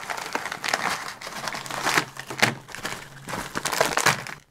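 Plastic packaging crinkling and rustling in a run of irregular bursts as hands dig into a plastic mailer bag and pull out the small plastic bags of cables inside.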